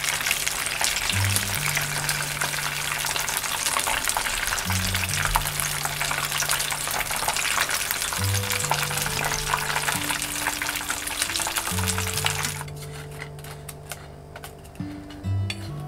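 Battered chicken pieces deep-frying in hot oil, nearly done: a dense, steady crackling sizzle that cuts off suddenly near the end, leaving a few light clicks. Background music with a steady low bass line runs throughout.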